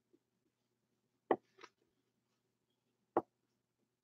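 A few sharp taps of a dry-erase marker against a whiteboard: one about a second in, a lighter one right after it, and another near the three-second mark.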